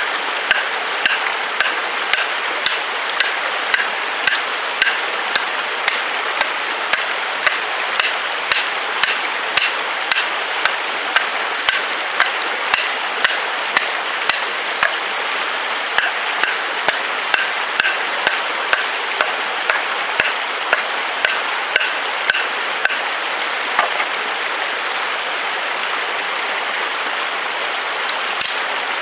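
Wooden baton striking the spine of a TOPS Tom Brown Tracker knife, driving the blade down through a dry driftwood log to split it (batoning): a steady run of sharp knocks, about one and a half a second, that stop a few seconds before the end. A mountain stream runs steadily underneath.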